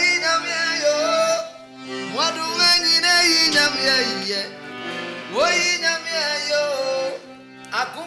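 Piano accordion playing sustained chords while a man sings over it in phrases that each swoop up at the start, with short pauses between phrases.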